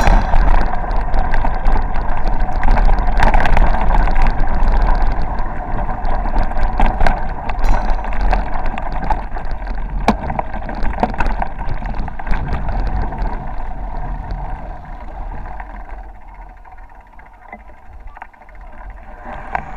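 Bicycle riding on a rough dirt road: wind rushing over the camera microphone with scattered knocks and rattles from the bumps. The noise fades over the last few seconds.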